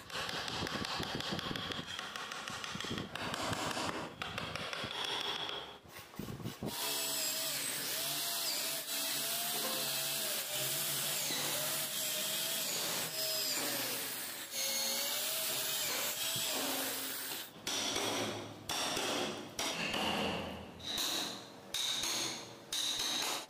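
Woodcarving sounds. A power tool runs steadily with a wavering whine for about ten seconds. Near the end a chisel is struck into the wood over and over, in quick, regular blows.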